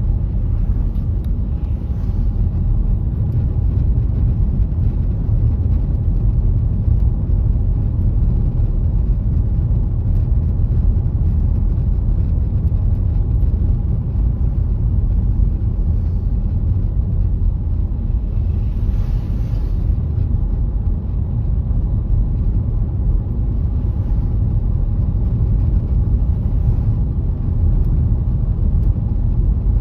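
Car driving slowly on a snowy road: steady low rumble of tyres and engine, with a brief hiss about two-thirds of the way through.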